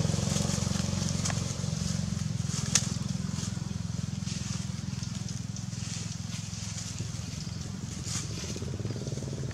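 Steady low engine hum, with a few short crackles of dry leaves.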